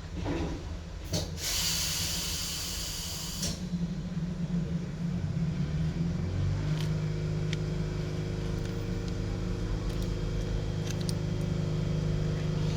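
A hiss lasting about two seconds, starting about a second in, followed from about six seconds in by a steady low mechanical hum with several tones, with a few faint clicks.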